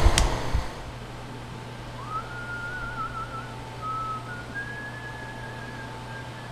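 A person whistling a wavering tune of held notes, starting about two seconds in, over a steady low hum. A sharp click and a short burst of rumbling noise at the very start.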